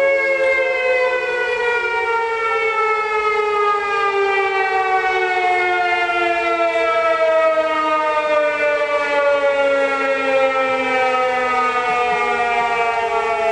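Several civil defence sirens sounding together, their wails overlapping at different pitches and slowly falling in pitch.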